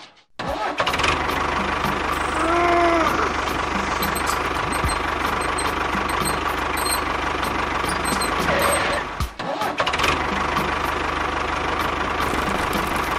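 A mini tractor's small engine starts and runs with a steady drone. It drops out briefly about nine seconds in, then picks up again.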